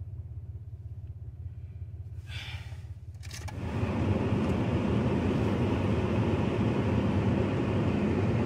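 Road noise inside a moving car: a low steady hum, then a click a little over three seconds in, after which a much louder steady rush of road noise takes over.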